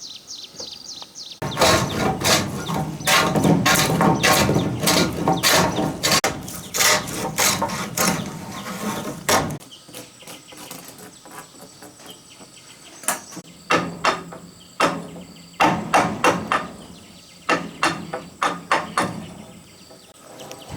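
Repeated hammering on wood: a dense, fast run of blows for about eight seconds, then slower, scattered blows from about ten seconds in.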